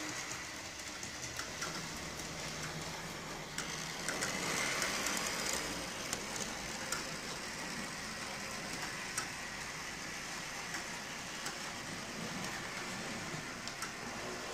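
Model streetcars running on a tram layout: a steady motor whir, with scattered sharp clicks as the wheels cross rail joints and points. The running is a little louder for a couple of seconds near the middle.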